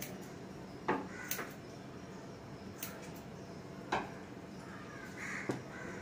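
Scissors snipping a sheep's wool during hand shearing: a handful of sharp snips at irregular intervals.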